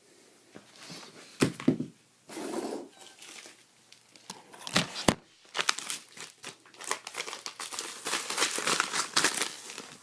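Plastic packaging crinkling and rustling as it is handled, with a few sharp clicks; the crinkling becomes denser and more continuous in the second half.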